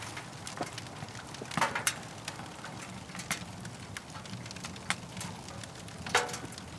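Oak firewood crackling in a wood-burning stove: irregular sharp pops and snaps, loudest about one and a half seconds in and again near the end, over a steady low hum.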